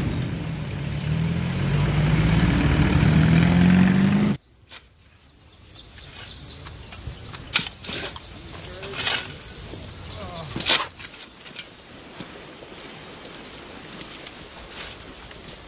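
Military truck engine running, its pitch rising as it pulls away, cut off abruptly about four seconds in. Then quiet outdoor ambience with several short bird chirps.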